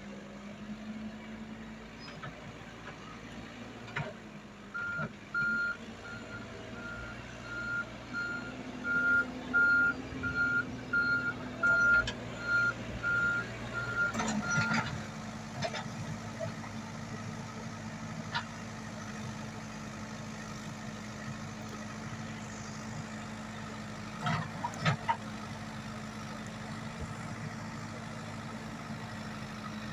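Komatsu WB93R backhoe loader's diesel engine running steadily, with its reversing alarm beeping about one and a half times a second for roughly ten seconds from about five seconds in. A few short knocks come around the middle and again about two-thirds of the way through.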